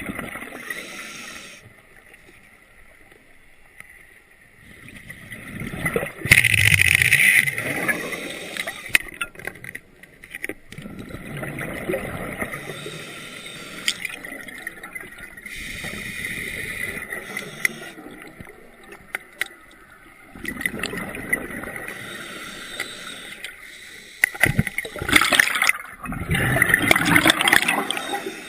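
Underwater recording of compressed-air bubbling and hissing in repeated bursts every few seconds, from scuba exhaust or air-tool exhaust. The loudest bursts come about a quarter of the way in and again near the end.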